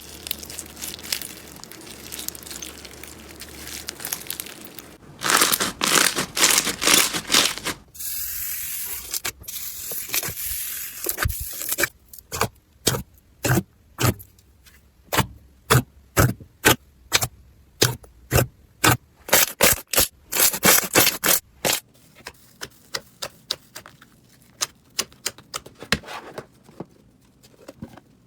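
Slime being squeezed and poked by hand: crackling and crunching, with a long run of sharp popping clicks through the middle.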